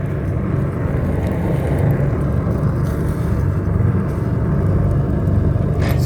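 Home-made gravity-fed pellet rocket stove burning hard, a steady low rumble of draught and flame, stoked with extra wood in the top to run hotter. A couple of sharp clicks near the end.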